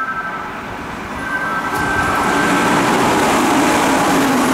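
Kintetsu electric train arriving at the platform: a short two-tone horn note about a second in, then the running noise of wheels and motors grows louder as the train draws alongside.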